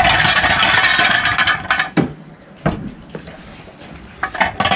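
Steel side-stand dolly for a motorcycle scraping and grating over paving stones as it is pulled from under the bike with its caster brake on. After that come a couple of sharp knocks and a few metal clanks near the end.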